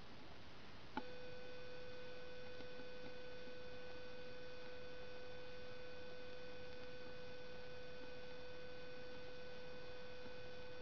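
A steady tone that starts with a click about a second in and holds one pitch without fading, over a faint background hiss.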